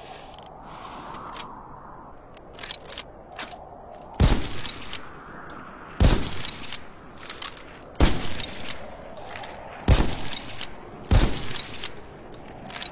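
Mosin-Nagant M91/30 bolt-action rifle firing five shots, roughly two seconds apart, each with a short echoing tail. Between the shots come quieter sharp metallic clicks of the bolt being worked.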